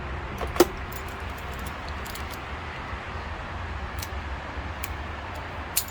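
A few short clicks and small knocks of parts being handled while a string trimmer's fuel lines are worked off the carburetor, the sharpest about half a second in and another near the end, over a steady low hum.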